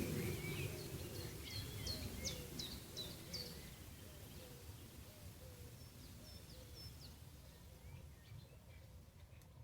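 Small birds chirping in quick high runs over a steady low outdoor ambience, with a cluster of chirps in the first few seconds and a few more about two-thirds through.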